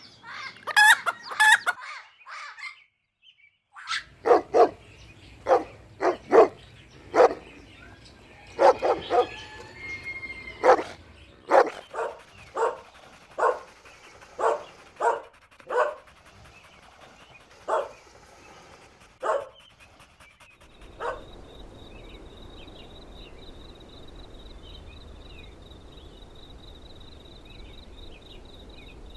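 A chicken's calls in the first two seconds, then after a short gap a dog barking repeatedly, about once a second, for some fifteen seconds. The barking stops about three-quarters of the way in, leaving a steady background hum with a thin high whine.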